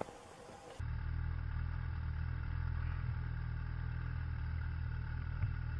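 A steady low rumble that starts abruptly about a second in, with faint steady hum above it.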